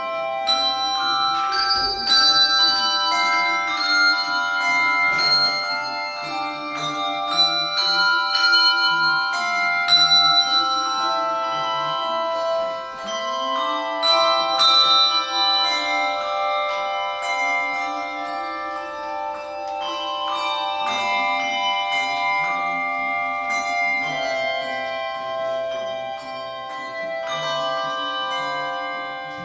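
Handbell choir playing a piece: many tuned handbells struck in turn, each note ringing on and overlapping the next.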